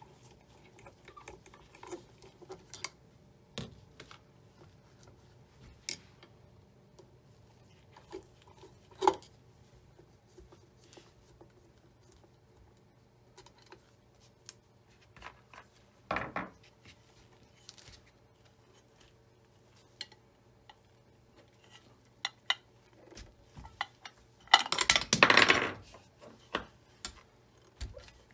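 Scattered small metal clicks and clinks of a screwdriver and loose parts being handled on a Singer Featherweight 221 sewing machine. Near the end comes a louder scraping rustle about a second and a half long as the machine is moved.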